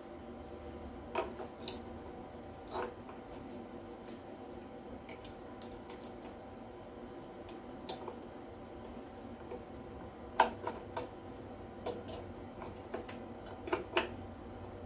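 Scattered clicks and knocks of a plastic welding-wire spool and its retaining knob being handled and fitted onto the spindle of a small MIG welder. The loudest click comes about ten seconds in and a few more follow near the end, over a steady hum.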